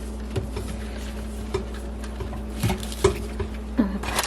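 Light clinks and knocks of dishes or food containers being handled, over a steady low hum.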